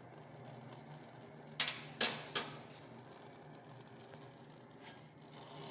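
Three sharp clicks in quick succession about a second and a half in, over a steady low hum, from handling at the stove and pot.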